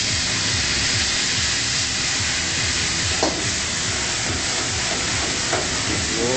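Food sizzling steadily in a hot wok.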